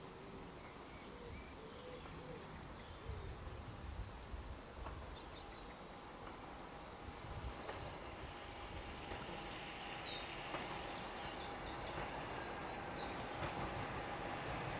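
Quiet countryside ambience with birdsong: a few low cooing calls near the start, then a small bird singing high, quick phrases in the second half. Under it a faint train approaching grows slowly louder, with a steady whine.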